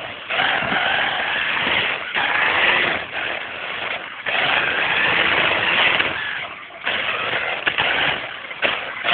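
A small engine heard close up, running hard in uneven bursts, with brief drops in level about every two seconds as the throttle comes off and on again.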